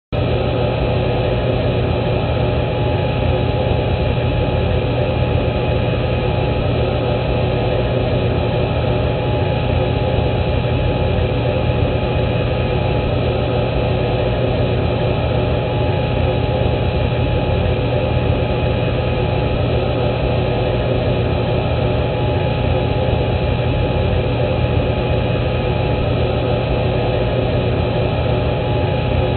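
Reconstructed cockpit voice recorder background noise: a steady, unbroken cockpit hum and hiss with a low drone and a few constant tones, muffled and cut off in the highs like a flight-recorder channel.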